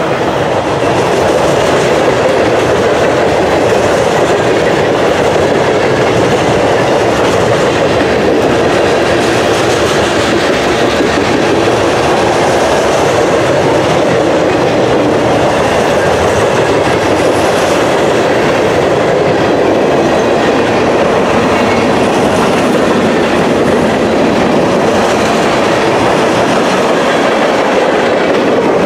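Freight train cars rolling past at close range: steel wheels running on the rails, a loud, steady noise that holds even as refrigerated boxcars and then tank cars go by.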